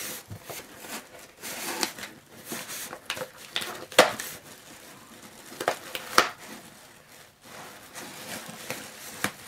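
Cardboard shipping box being handled while packing tape is picked and peeled at by fingers: irregular scratching, rustling and crinkling, with sharp clicks of cardboard and tape, the sharpest about four seconds in and again around six seconds.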